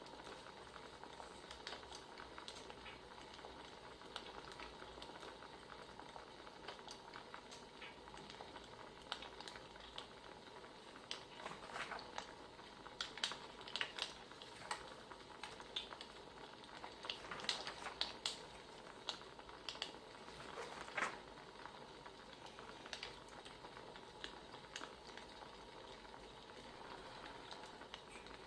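Wood fire crackling: a faint steady hiss with scattered sharp pops and snaps, thickest through the middle stretch.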